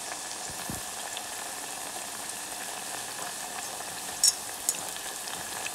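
Sweet potato fries deep-frying in hot oil: a steady bubbling sizzle, with two sharp pops a little past four seconds in. This is the first of two fryings, before the fries are crunchy.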